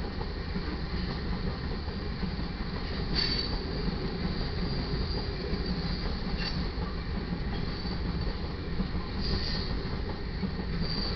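Freight train cars rolling past at a grade crossing: a steady rumble of steel wheels on rail, with brief high wheel squeals about three seconds in, again around six and a half, and near nine seconds.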